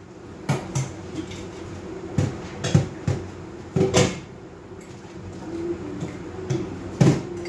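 Dishes and kitchenware knocking and clattering as they are handled at the kitchen counter: a string of separate sharp knocks, with the loudest about four seconds in and near the end, over a steady low hum.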